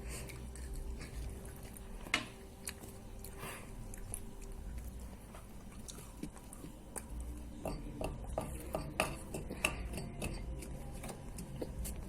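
Light clicking and tapping of small objects being handled, with one sharper click about two seconds in and a denser run of clicks after about seven seconds.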